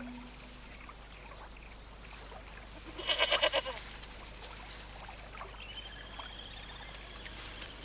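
A goat bleating once, a short wavering bleat about three seconds in.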